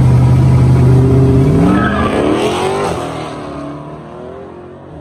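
Drag-racing pickup truck and car engines held at steady revs on the start line, then launching about a second and a half in. The engine pitch climbs as they accelerate hard down the strip, and the sound fades as they pull away.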